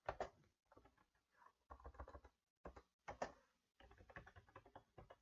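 Faint computer keyboard keystrokes: a few separate key presses, then a quicker run of typing near the end.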